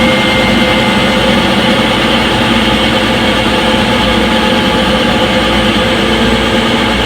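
Front-load washing machine in its spin cycle: a steady drum spin with a low rumble and a constant whine.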